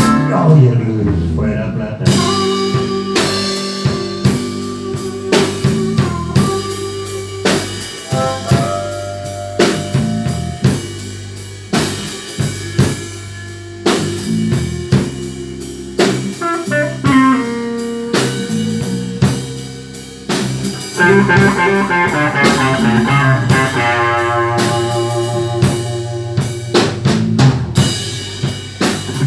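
Live blues band playing an instrumental break between verses: drum kit and bass keep the beat under a lead line of held and bending notes. The lead breaks into a fast run of notes about two-thirds of the way through.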